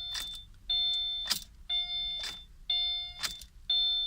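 A 2017 Subaru Forester's dashboard warning chime, an electronic ding repeating about once a second, with the key jingling in the ignition between dings. No starter click or engine cranking is heard: the car fails to crank when the key is turned.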